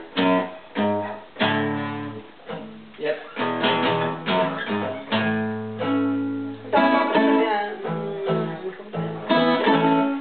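Acoustic guitar being played, a mix of strummed chords and single plucked notes that ring out and fade.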